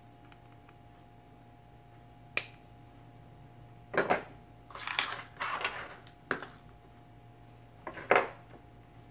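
Metal hand tools (pliers and side cutters) handled on a workbench: a single sharp click, then a run of clicks and short rattles as the tools are moved among test leads, ending in a loud knock of a tool being set down. A faint steady hum sits underneath.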